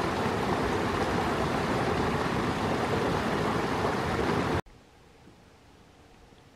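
A loud, steady rushing noise with no tones in it, cutting off abruptly about four and a half seconds in to a faint, quiet outdoor hiss.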